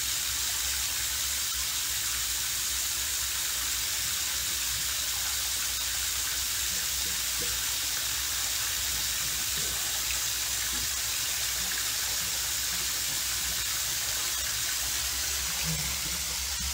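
Bathroom tap running steadily, an even hiss of water left on while waiting for hot water that doesn't come: the water stays cold.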